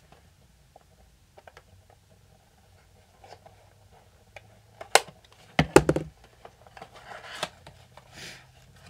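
Handling of a small cardboard box and paper packets: light taps and rustling, a few sharp knocks about five to six seconds in, and papery rustles near the end.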